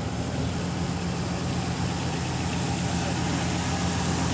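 A steady, low engine hum, like an engine idling.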